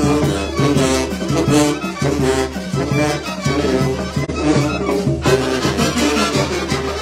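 Oaxacan brass band (banda de viento) playing a lively carnival tune: clarinets, trumpets and a heavy section of tubas (sousaphones) together, the notes changing quickly in a steady rhythm.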